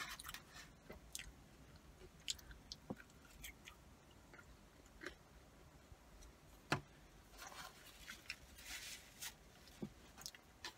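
A person chewing cheesy curly fries: faint mouth sounds with scattered small clicks, and one sharper click about two-thirds of the way through.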